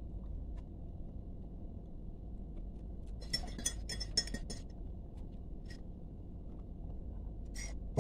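A metal spoon clinking against a ceramic cup: a quick run of bright ringing clinks about three seconds in, then a couple of single taps, over a low steady hum.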